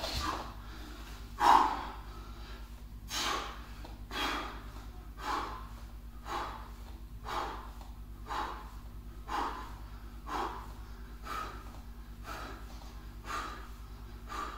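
A man breathing hard in short, sharp breaths, about one a second, keeping pace with fast bodyweight squats; the breath about a second and a half in is the loudest.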